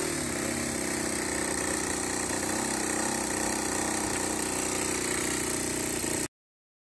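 Aprilia SR50 Ditech scooter's 50 cc two-stroke direct-injection Morini engine idling steadily. The sound cuts off abruptly a little after six seconds in.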